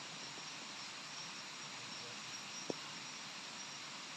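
Steady hissing background noise with a faint, broken high-pitched tone, and a single sharp snap about two and a half seconds in.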